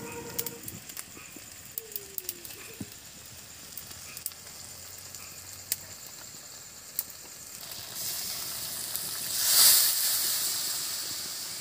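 Small fish frying in oil in a metal kadai over a wood fire: a steady sizzle with scattered sharp crackles. About eight seconds in, the sizzle swells into a loud hiss of steam, peaking near ten seconds and fading, as liquid hits the hot pan.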